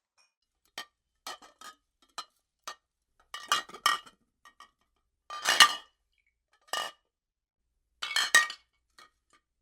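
A run of sharp, ringing clinks of hard objects at irregular intervals, each sounding the same few bright pitches, the loudest a little past halfway.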